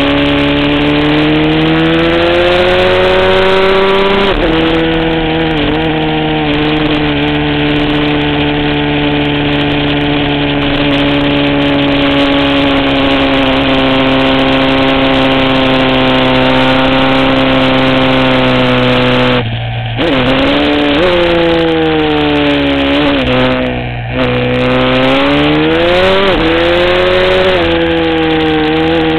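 Aprilia SXV supermoto's V-twin engine at racing speed, heard from a camera mounted on the bike. The revs climb and it shifts up about four seconds in, then holds high and steady for a long stretch; about two-thirds through the throttle shuts off and the revs fall with a few quick downshift blips, then it accelerates hard again with another upshift near the end.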